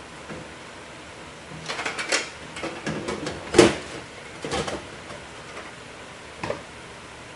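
Several knocks and clatters of hard objects being handled, in short clusters, the loudest about three and a half seconds in, over a steady hiss.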